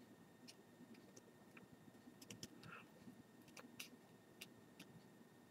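Near silence: room tone with faint, scattered small ticks and clicks.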